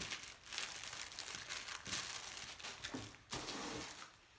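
Clear plastic wrapping crinkling and rustling in irregular strokes as it is handled and pulled away, with a louder rustle about three seconds in.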